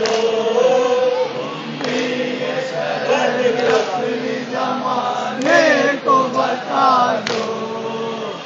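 A group of men chanting a verse together in unison on long, held notes, with a few sharp knocks among it.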